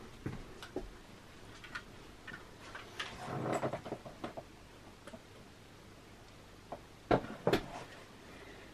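Suitcase and hand-held luggage scale being handled as a case is hooked on and lifted for weighing: scattered small clicks and rattles, a brief rustle about three and a half seconds in, then two sharp knocks about seven seconds in, the loudest sounds here.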